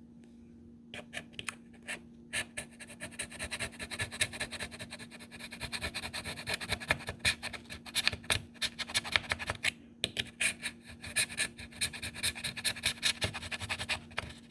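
Homemade steel scraper cut from a broken jigsaw blade scraping off old battery adhesive, in rapid, irregular short strokes with a brief pause about ten seconds in.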